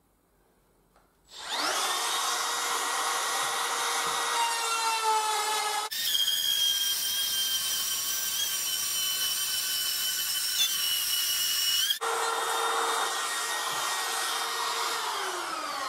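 Cordless trim router starting up about a second in and running at full speed as it cuts a pocket through a laminate floorboard, a high whine that changes tone abruptly twice, then spins down near the end.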